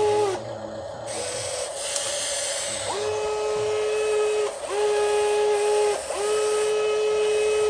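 Small electric motor of a homemade RC excavator whining in runs of one to two seconds, each run rising quickly to a steady pitch, as the machine's functions are worked. A hiss fills the gap between the first and second runs.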